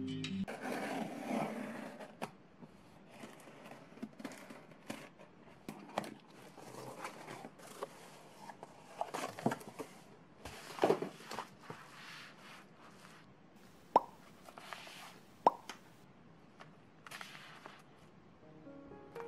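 Plastic and paper packaging rustling and crinkling as it is handled on a desk, with scattered light taps. Past the middle come two sharp clicks about a second and a half apart.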